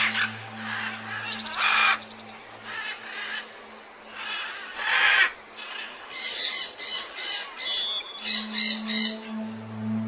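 Rainforest birds squawking: several harsh single calls, then quick runs of repeated calls in the second half. A low steady music drone fades out early and returns near the end.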